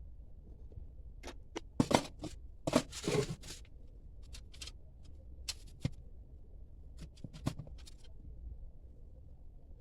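Sharp metallic clicks and knocks from handling a welded metal mouse trap and its screws, with a brief rattle about three seconds in.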